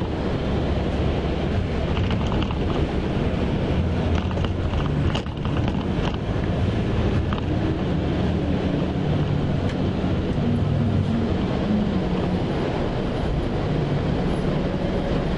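Cabin noise of a Marcopolo Paradiso 1800DD coach on a Scania K420 chassis under way: a steady diesel engine drone whose pitch shifts slightly up and down, mixed with road and wind noise heard from inside the bus.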